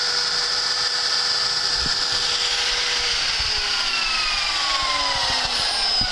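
CNC spindle motor running with a steady whine, then winding down from about halfway through, its pitch sliding steadily lower as it coasts after being switched off.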